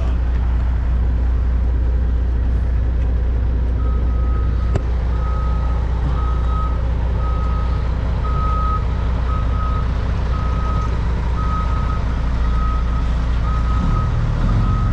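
Semi truck's diesel engine running with a low, steady rumble. A reversing alarm starts beeping about four seconds in and keeps a steady beep of roughly one and a half to two a second.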